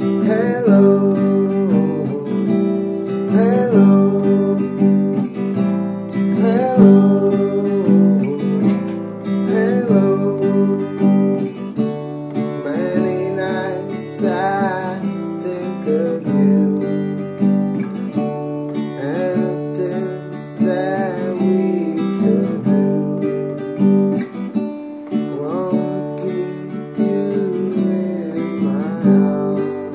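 Acoustic guitar strummed steadily in a soft ballad, with a man's voice singing a melody over the chords.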